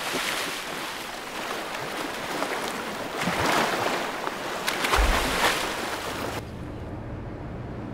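Sea water splashing and churning as a humpback whale surfaces, lifts its flukes and dives, with a heavy low thud about five seconds in. About six and a half seconds in the splashing cuts off and gives way to a quieter steady low hum.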